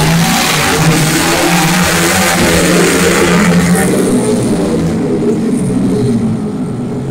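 Racing motorcycle engines running at high revs as bikes lap the circuit, loud at first and fading after a few seconds as they pull away.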